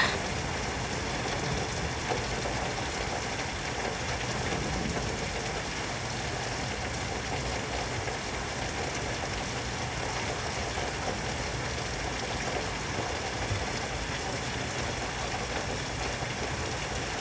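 Steady rain falling in a thunderstorm, an even hiss of rain on surfaces.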